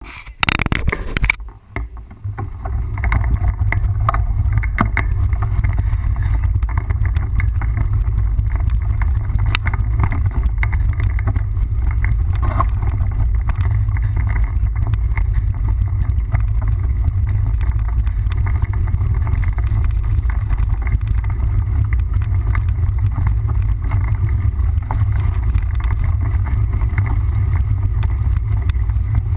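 Steady low rumble of wind buffeting the microphone as a mountain bike is ridden along a trail, with scattered short knocks and rattles from the bike over rough ground.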